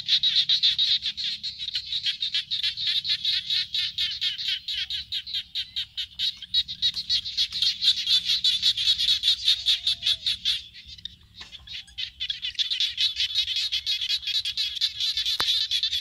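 A chorus of frogs calling from a flooded field: a dense, high-pitched run of rapid pulses that stops for about a second and a half roughly two-thirds of the way through, then starts up again.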